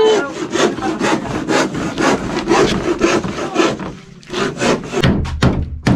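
Handsaw cutting wood in quick, regular back-and-forth strokes, about four a second, with a short pause about four seconds in before a few more strokes.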